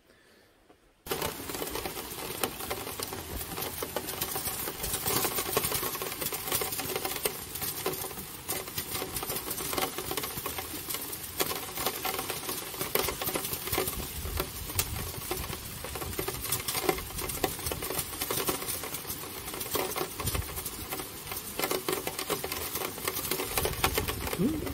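Steady rain pattering outdoors, a dense run of small drop ticks. It starts abruptly about a second in.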